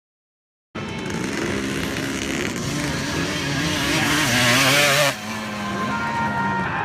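Dirt bike engines revving, the pitch wavering up and down, cutting in suddenly about a second in and changing abruptly to a steadier engine note near five seconds.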